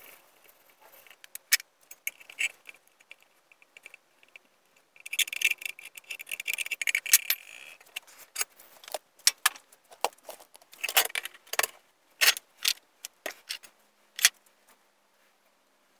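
Hand tools and an aluminium pipe clinking and clattering on a steel workbench: scattered light clicks, a spell of rattling about five seconds in, then a series of sharp separate knocks that stop shortly before the end.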